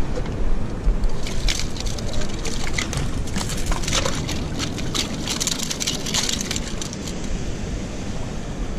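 A landed Pacific bonito flapping and slapping on bare rock, a fast irregular run of taps from about a second and a half in until near the end, over wind on the microphone and surf.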